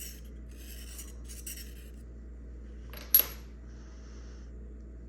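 Steel dental curette scraping on a hand-held sharpening stone: a few short, high-pitched rasping strokes, then a single sharp metallic click about three seconds in.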